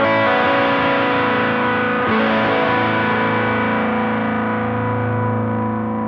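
Electric guitar, an Epiphone Firebird, played through a multi-effects amp modeler: notes picked, then a chord struck about two seconds in and left to ring, slowly fading.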